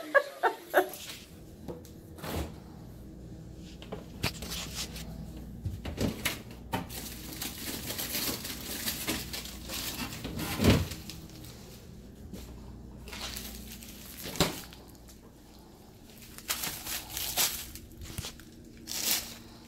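Irregular kitchen handling sounds: scattered knocks and clicks, the sharpest about halfway through, and a stretch of rustling near the end, over a faint steady hum.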